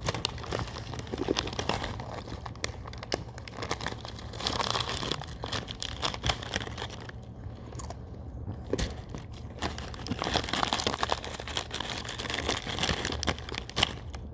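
Irregular crinkling and rustling with scattered small crunches and clicks, as of something being handled and crumpled close by, easing briefly about halfway through.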